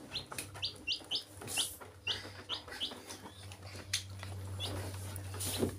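Young chicks peeping: a quick series of short, high peeps, coming fastest in the first three seconds, with scattered light taps.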